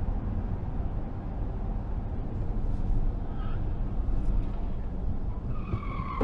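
Steady low rumble of road and wind noise from a car driving on a freeway, picked up by a dashcam inside the car. Near the end a faint high tyre squeal builds from a car ahead skidding.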